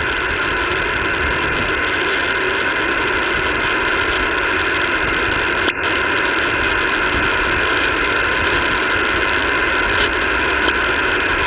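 Steady hiss of static from an HF radio receiver tuned to the 20-metre amateur band, open between transmissions, with a brief dropout about six seconds in.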